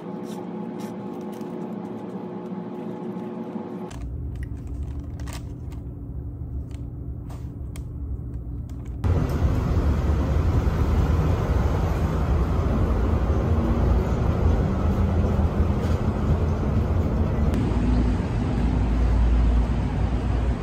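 Ambient sound in three parts: a steady hum with a few faint tones, then a lower rumble, and from about nine seconds in a sudden jump to loud city road traffic, a steady noise and rumble of buses and cars.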